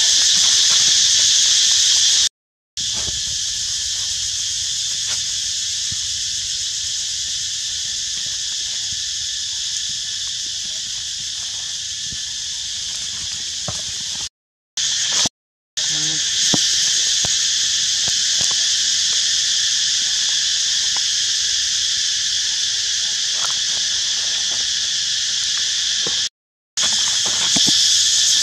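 Loud, steady, high-pitched chorus of insects droning in forest. It drops out abruptly three times, and a few faint clicks sound beneath it.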